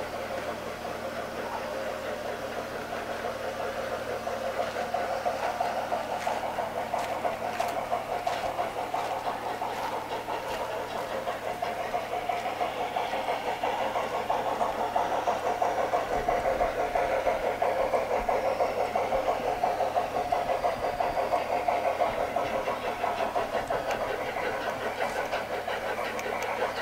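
Large-scale garden-railway model trains running on outdoor track: a steady mechanical running sound with a fast, even pulsing, getting louder a few seconds in, with a few sharp clicks.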